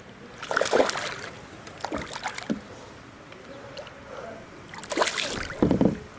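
Water splashing and sloshing around a fishing kayak, with knocks of handling against the boat, in three bursts; the last, near the end, is the loudest.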